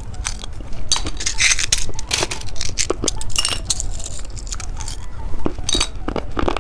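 Plastic candy packaging and toy-shaped candy being handled: irregular light clicks, taps and crinkling.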